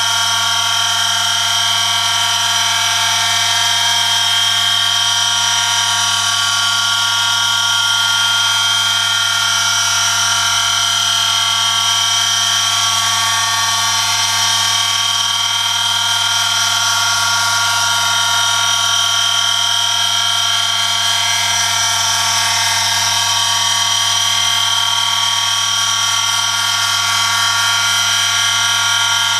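Home-built oil friction-test rig running under load: an electric motor spins a shaft against a metal test sample pressed on by a 1 kg weighted lever, metal rubbing on oil-lubricated metal. It makes a steady low hum with a constant high-pitched whine over it.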